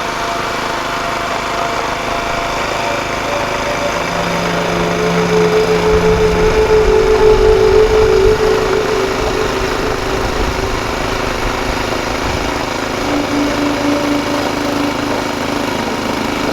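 Snowblower's small gas engine running while clearing a path through deep snow, its pitch shifting as the load changes. It grows louder about five seconds in, then drops back sharply about eight seconds in.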